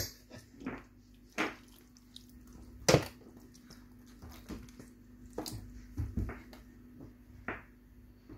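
Scattered clinks and knocks of kitchen utensils against dishes, one every second or two, over a faint steady hum.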